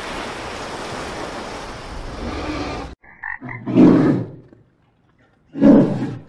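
A steady wash of water noise for about three seconds, then a polar bear gives two short, loud, low calls about two seconds apart.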